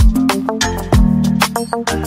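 Background music with a steady beat and a bass line, Afrobeat in style.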